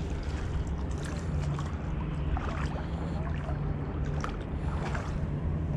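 Water sloshing and lapping around a wading angler's legs, over a steady low rumble, with a few faint short ticks.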